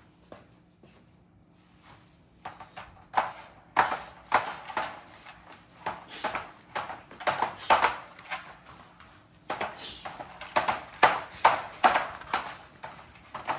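American bully puppies scuffling on a tiled floor beside a wire dog crate: irregular clattering knocks and claw scrapes that start about two seconds in and come in quick runs.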